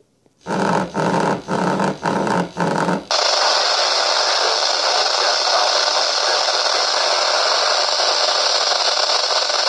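Motorola Minitor VI pager going off: about five short beeps of its alert, then a steady, loud hiss of radio static from its speaker as it receives the page.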